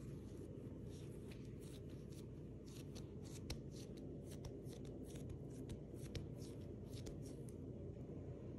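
Hands handling and pressing a ball of dough on a countertop: faint, irregular soft rustles and small clicks, with a slightly louder click about three and a half seconds in and another about six seconds in, over a low steady hum.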